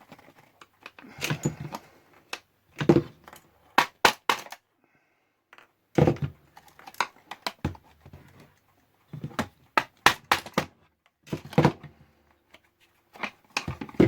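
Irregular clicks, taps and knocks of hard plastic radio parts being handled and turned over, with short scraping rustles between them.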